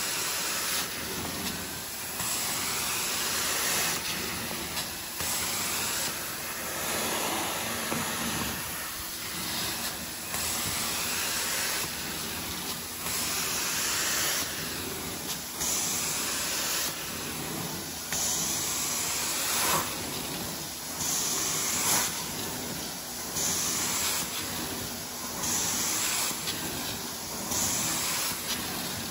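Carpet extraction wand hissing as it is drawn over wet carpet, its spray and suction swelling and easing every second or two with the strokes.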